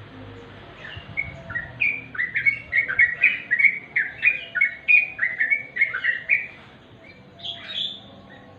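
Yellow-vented bulbul (trucukan) singing: a fast run of short chirping notes, about three a second, for several seconds, then a few fainter notes near the end.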